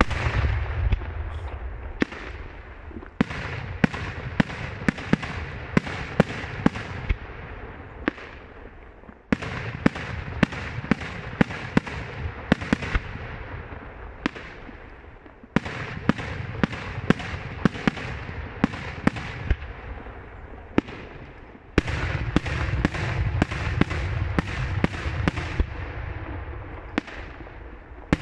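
Daytime fireworks display: aerial shells bursting in a rapid series of sharp bangs over dense crackling. The barrage comes in waves, a new one starting abruptly about every six seconds and thinning out before the next.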